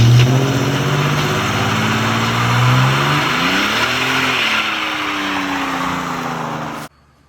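S-10 drag truck's engine running loud, its pitch sagging slowly, rising briefly past the middle and falling again; the sound cuts off suddenly near the end.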